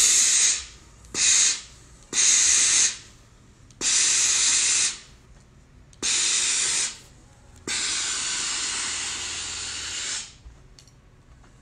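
Steam iron letting out bursts of steam while pressing seams open on a sleeve board: six hisses with pauses between them, the last one the longest, about two and a half seconds.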